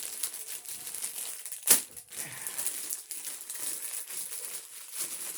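Packaging crinkling and rustling as the tail piece of a large toy is worked out of its wrapping, with one sharp, loud crackle about a third of the way through.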